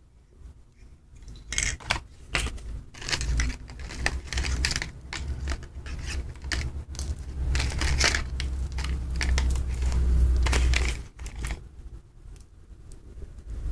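Bundled cables, connectors and packaging rustling and clicking as they are handled in a cardboard box and set down, a dense run of crinkling and clicking from about a second and a half in until about eleven seconds. Low rumbling handling noise on the microphone runs under it.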